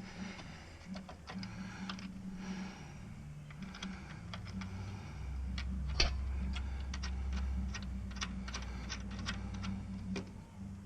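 Irregular light metallic clicks and clinks of hand tools and hardware, with one sharper knock about six seconds in and a low rumble for a few seconds around it.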